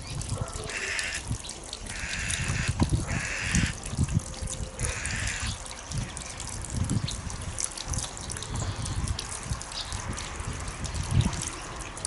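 Harsh, rasping bird calls, four short ones in the first half, over faint high chirps and an uneven low rumble.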